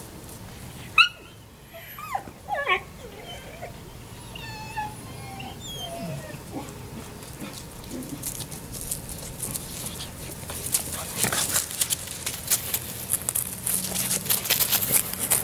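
Labrador retriever puppies at play: a sharp yelp about a second in, then falling whines and small high squeaks. From about eight seconds on, a busy crackling rustle of dry leaves and grass as the puppies scuffle close by.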